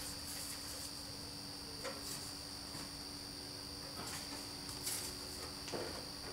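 A few faint clicks and taps of a plastic model roof section being handled and set down onto the roundhouse's plastic truss frame, over a steady high-pitched whine and low hum in the room.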